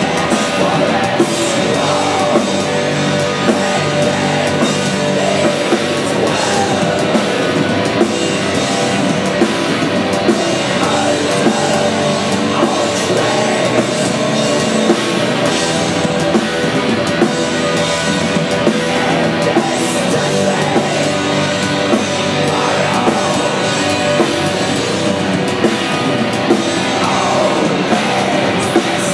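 Black metal band playing live: a dense, loud wall of distorted guitars and bass over a drum kit, holding an unbroken pace with regular drum hits.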